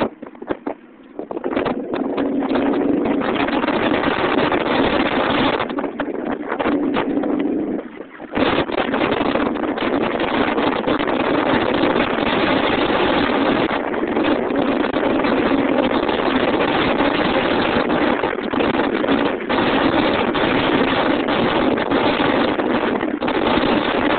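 Subaru Impreza WRX STI driving at speed: steady engine and road noise under heavy wind buffeting on the microphone, dipping briefly about eight seconds in.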